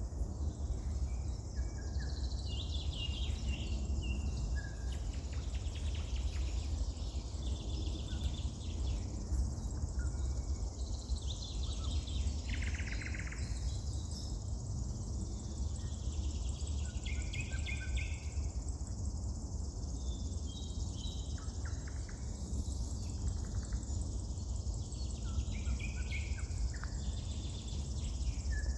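Wild songbirds singing and calling, with many short chirps and trills overlapping throughout, over a steady low rumble.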